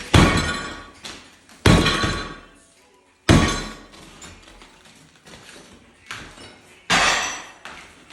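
Old ceramic floor tile being smashed: four sharp cracking blows, each followed by a trailing clatter of shards. The first three come about a second and a half apart and the last after a longer pause.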